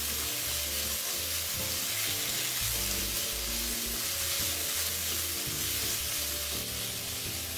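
Pork strips, onion and black pepper sauce sizzling in a hot wok while a silicone spatula stirs them: a steady frying hiss. Soft background music runs underneath.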